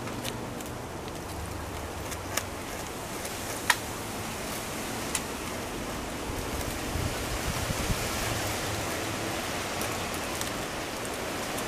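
A beaver gnawing a fallen tree limb: its teeth scrape and crunch the wood in scattered sharp clicks, the loudest a little under four seconds in. A steady rushing hiss lies under it.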